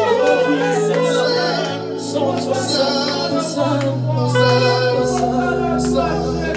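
Gospel worship music: voices singing over instrumental accompaniment, with held bass notes and a regular beat.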